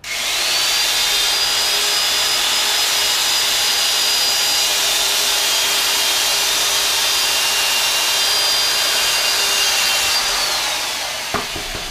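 Electric drill running steadily, its bit cutting a lip-line slot into a foam deer mannequin, with a high whine over the grinding; the motor winds down about ten seconds in, followed by a few light clicks.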